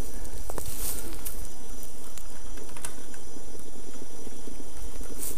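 Outdoor forest ambience dominated by wind rumbling on the camera's microphone, with a faint steady high-pitched whine and a few light clicks.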